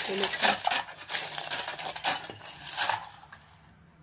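Ice cubes clattering and clinking as they are scooped by hand from a plastic bowl and dropped into a steel pot of tamarind water, dying away near the end.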